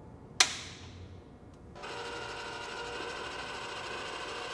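A sharp click as the MIG welder's power switch is flipped on, then, about two seconds in, the welder's wire-feed drive motor starts a steady mechanical whir, feeding steel welding wire up the torch line.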